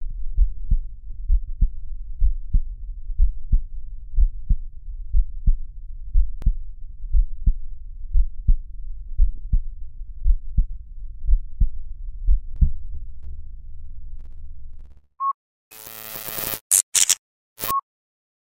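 Heartbeat sound effect: regular low thuds in a heartbeat rhythm over a low hum, stopping about 15 seconds in. A few short bursts of static with brief electronic beeps follow.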